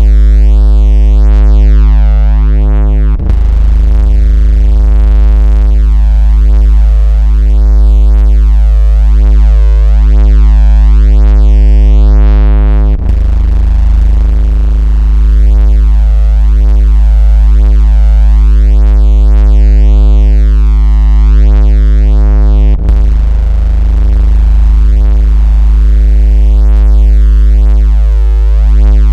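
A loud, steady electronic low-frequency vibration tone at 56 Hz, heard as a deep buzz with many overtones. It briefly drops out and restarts three times, about every ten seconds. This is the kind of tone played to make a phone vibrate, to push water out of a phone speaker, or to test a speaker's bass.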